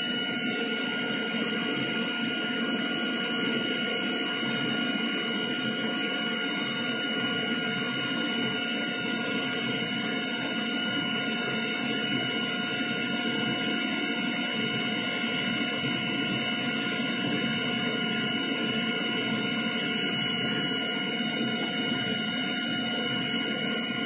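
Retrofitted CNC mill running a cutting program: a steady hiss with several fixed high whining tones from the spindle and servo drives, unchanging throughout.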